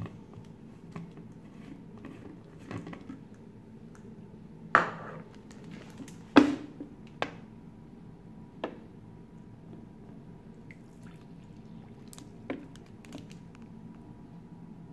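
Handling of a portable USB blender's plastic cup and lid and a plastic water bottle while water is poured into the cup: scattered light clicks and knocks, with two louder knocks near the middle. The blender's motor is not running.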